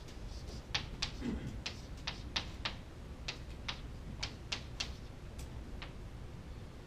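Chalk writing on a chalkboard: about a dozen sharp, irregular taps and clicks as the chalk strikes the board, most of them between about one and five seconds in.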